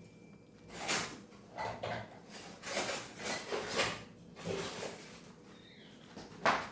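Cutlery and utensils rattling and scraping in a string of short bursts as a fork is fetched, with a sharper click near the end.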